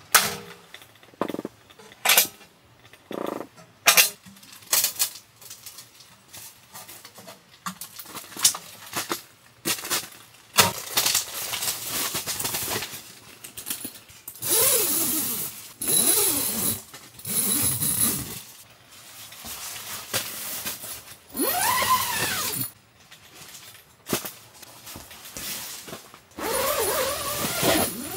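Camp kitchen gear being handled: a metal lid clanks onto a portable grill, then a run of sharp knocks and clinks. Later come longer scraping and rubbing noises, some with squeaky rising and falling pitch.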